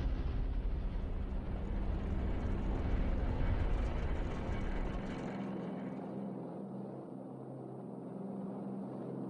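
Airship engines running as a deep, steady rumble with a low hum. About halfway through, the deepest rumble drops away and a quieter, steady hum remains.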